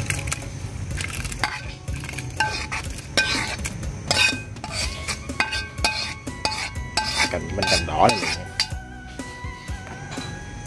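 A metal utensil scraping and clinking against a metal pan and cooking pot as stir-fried shrimp is tipped into the noodle soup and stirred. Irregular knocks and scrapes, some with a brief metallic ring.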